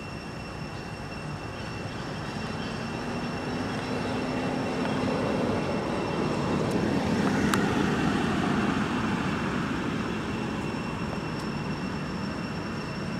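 Distant engine rumble that swells to a peak about eight seconds in and then slowly fades, like a vehicle passing, under a steady high-pitched tone.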